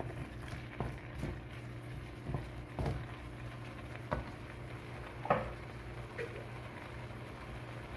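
Wooden spatula scraping and knocking against a steel wok as shrimp are stirred in butter and chili oil, with the shrimp frying gently. A few scattered knocks follow once the stirring stops, the loudest about five seconds in, over a steady low hum.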